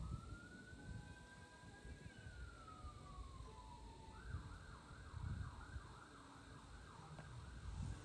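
Faint emergency-vehicle siren: a slow wail that rises and then falls over about four seconds, then switches to a fast yelp cycling about three times a second.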